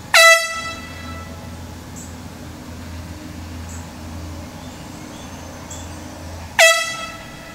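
Handheld air horn blasting twice, about six and a half seconds apart. Each blast is short and loudest as it starts, then fades within about a second.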